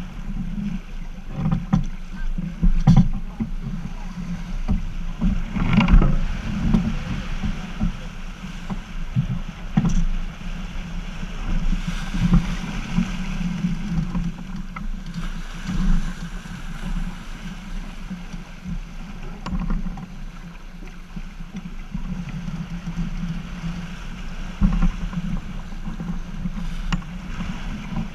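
Wind buffeting the microphone over the rush of water past the hull of a Half Ton racing sailboat moving fast through choppy sea, with a few louder knocks and slaps.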